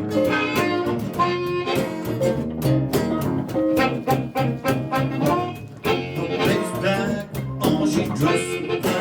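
Live blues band playing an instrumental passage: a harmonica lead over guitar with a steady beat.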